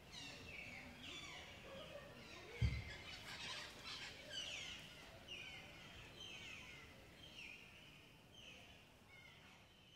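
Faint birdsong outdoors: a bird repeating short, falling chirps about twice a second, fading out over the last few seconds. A single low thump comes in near the start.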